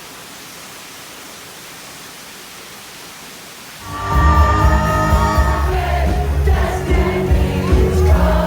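A steady rushing noise, then about four seconds in loud music with heavy bass and singing starts suddenly.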